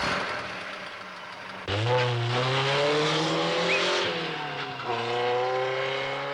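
Cartoon car sound effect: a sudden burst of noise that fades, then a car engine that kicks in about a second and a half in and revs up with rising pitch, drops back near the middle, and revs up again.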